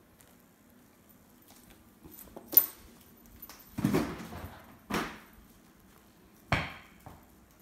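A few separate knocks and rattles, the loudest and longest about four seconds in, as a small pet monkey clambers onto the bottom bar of a pull-down projector screen.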